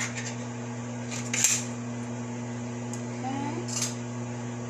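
A metal can of coconut milk being pulled open by its ring tab: a short sharp metallic rip about a second and a half in, and a smaller scrape near the end. A steady fan hum runs underneath.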